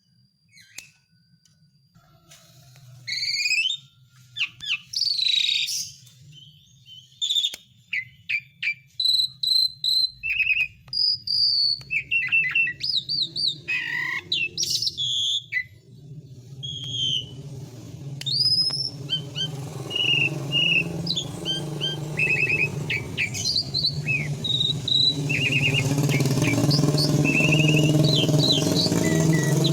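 Pied starling (jalak suren) singing: a varied run of loud whistles, squeaky notes and chattering phrases starting a couple of seconds in. In the second half the notes come shorter and quicker over a rising hiss and a steady low hum.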